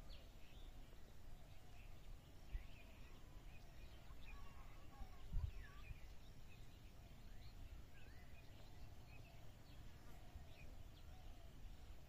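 Faint outdoor ambience of small birds chirping now and then over a steady low rumble, with a brief low thump about five seconds in.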